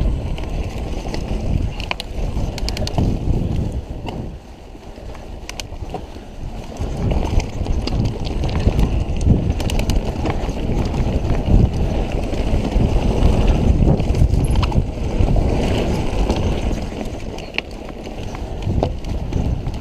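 A mountain bike rolling fast along dirt singletrack, with wind buffeting the camera microphone and a heavy tyre rumble. Scattered sharp clicks and rattles come from the bike and trail stones. The noise eases for a couple of seconds about four seconds in.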